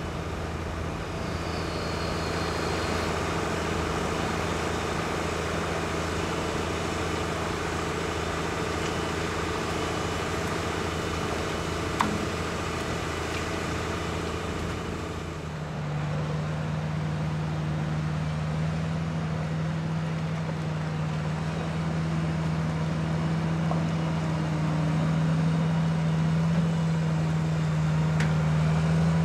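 JCB Fastrac tractor's diesel engine running steadily. About halfway through, the note changes to a stronger, steady hum that grows louder near the end.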